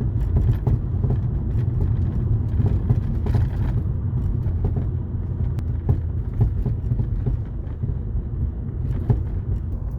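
Road rumble of a moving Volkswagen Golf with irregular short knocks from the rear. The cause is unknown; the owner suspects worn struts, poor-quality suspension bushings (silent blocks), or snow frozen somewhere under the car.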